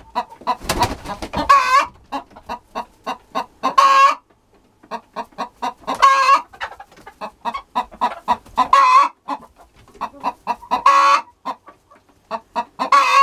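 Chicken cackling: runs of short clucks, about three or four a second, each run ending in a longer, louder squawk, repeating roughly every two seconds. A brief rustling burst comes about a second in.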